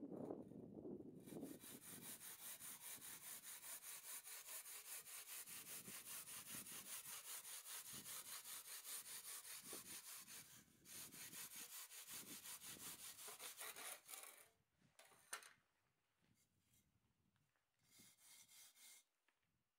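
Hand saw cutting through a soft insulating firebrick in steady back-and-forth strokes, with a short pause partway through. The sawing stops about fourteen seconds in, followed by a few brief scrapes as the cut brick is handled.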